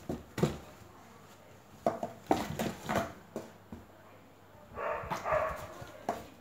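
Cardboard box knocked and scraped by playing cats: a run of sharp knocks and clicks, then, about five seconds in, a rougher scratchy sound lasting about a second.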